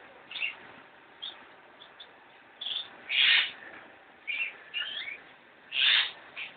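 Lovebirds chirping: a string of short, high calls at irregular intervals, the loudest about three seconds in and again about six seconds in.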